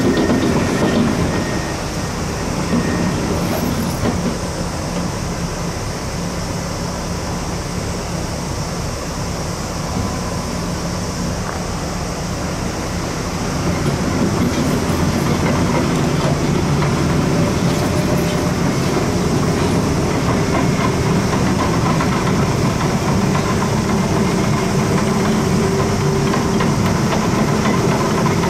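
A heavy diesel earthmoving machine working, with a steady engine drone and metallic rattling. It grows louder about halfway through.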